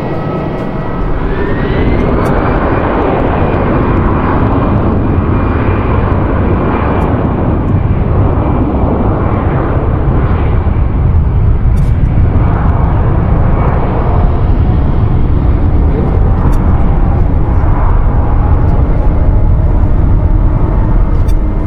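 Airbus A320-214 jet airliner with CFM56 turbofan engines spooling up to takeoff thrust, a whine rising about two seconds in. Then the steady, loud roar of its takeoff roll down the runway, slowly growing louder.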